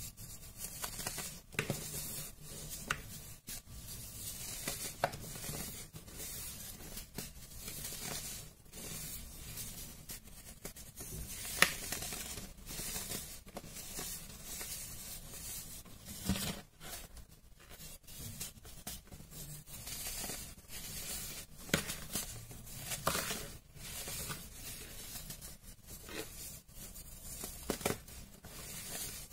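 Hands crushing and crumbling pressed blocks of baking soda into loose powder: a continuous irregular crunching and crackling, with one sharper, louder crack about twelve seconds in.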